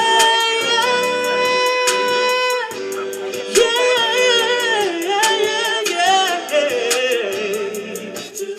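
R&B song sung live: a singer holds long, wavering wordless notes over an accompaniment with a steady ticking beat.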